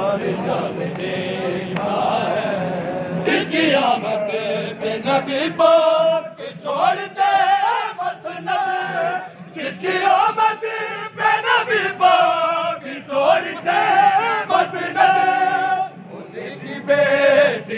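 A group of men chanting a noha, a Shia mourning lament, in Urdu, with a lead voice carrying the sung lines. Sharp hand strikes, typical of matam chest-beating, come irregularly through the chant.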